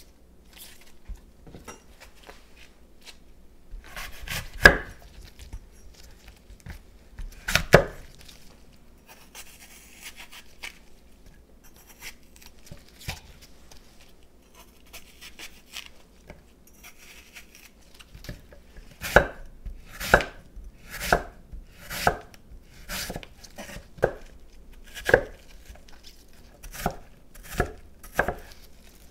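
Knife chopping apple on a cutting board: two single chops a few seconds in, then a run of chops about one a second through the last ten seconds.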